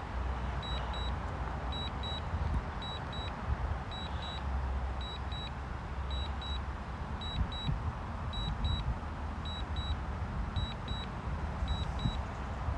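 DJI Mavic Air 2 remote controller beeping in short double beeps, a pair about every second, the alert it sounds while the drone is on Return-to-Home. Steady wind rumbles on the microphone underneath.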